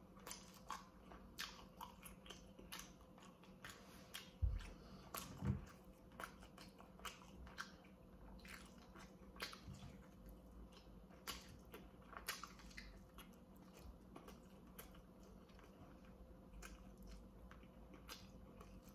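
Faint chewing and biting on baked chicken drumsticks: many small mouth clicks as meat is pulled off the bone and chewed, with a couple of low thumps about four and five seconds in.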